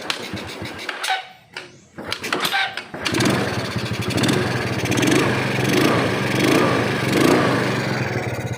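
Freshly rebuilt Yamaha Mio scooter's single-cylinder four-stroke engine being cranked in short bursts, catching about three seconds in and running on with a rapid, even beat, its revs rising and falling a few times.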